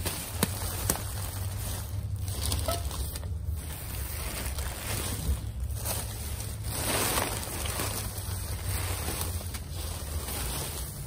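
Wind rumbling on the microphone, a steady low rumble with a few gusts swelling, and two sharp clicks near the start.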